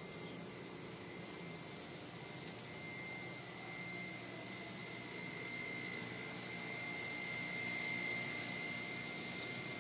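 Steady background hiss and hum with a thin, steady high-pitched whine that grows a little louder about three seconds in.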